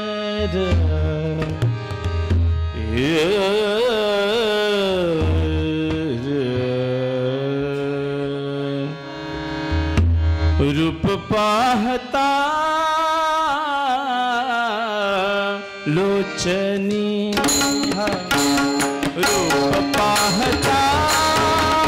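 Marathi Warkari devotional bhajan. A male voice sings long, ornamented phrases over a harmonium, with pakhawaj and tabla drumming. In the last few seconds the drumming turns to fast, dense strokes.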